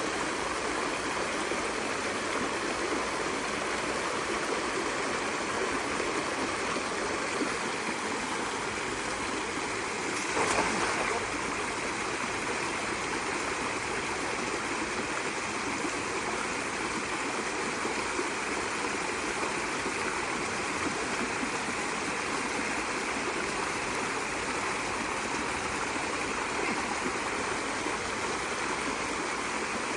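Steady rushing of flowing water, as at a dam outflow, with one brief louder burst about ten seconds in.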